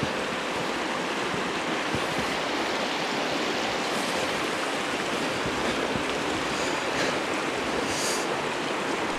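Shallow rocky creek running under a footbridge: a steady, even rush of water over stones.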